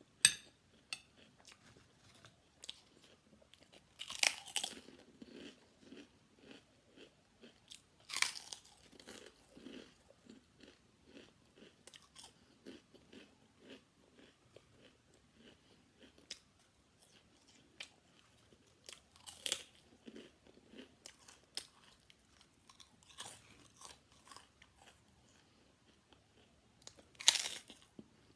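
Close-miked eating: soft chewing with a few loud, crisp crunches several seconds apart. The last crunch, near the end, is a bite of prawn cracker.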